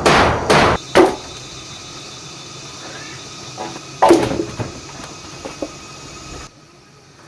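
Hammer blows: three quick strikes about two a second, then a pause and one more strike with a short ring about four seconds in.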